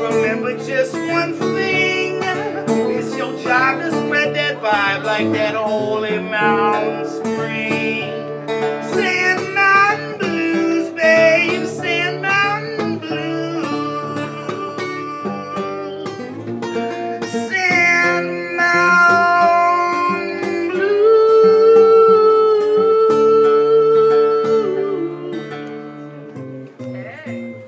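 Acoustic guitar played live with a man singing into a microphone, the pitch of the voice bending from note to note. In the second half there is a long held note, and the music dies down near the end.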